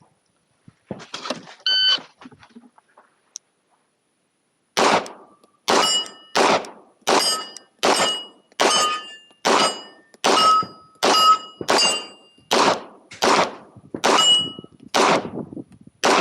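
A shot timer beeps about two seconds in, and a few seconds later a service pistol fires about fifteen shots in steady succession, roughly one every 0.7 s. Most shots are followed by the ring of steel targets being hit.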